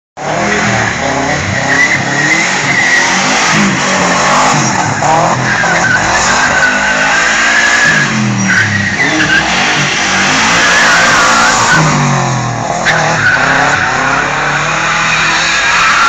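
Subaru Forester converted to rear-wheel drive, drifting: its tyres squeal in long wavering skids while the engine revs rise and fall over and over.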